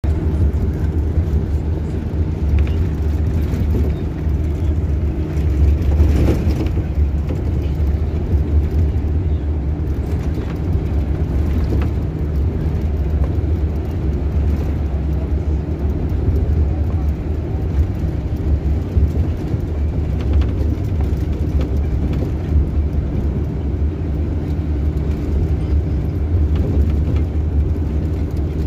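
Steady low rumble of a coach bus heard from inside its passenger cabin, a constant drone with a few steady humming tones above it.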